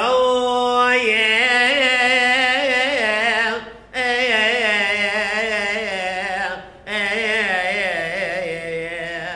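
A priest singing solo liturgical chant, in three long ornamented phrases with a wavering pitch, pausing briefly for breath about four seconds in and again near seven seconds.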